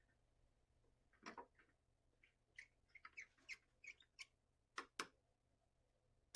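Faint, scattered clicks and light knocks, about a dozen over four seconds, ending in one sharp click: the sounds of a clamp being handled and tightened on a freshly glued chair joint.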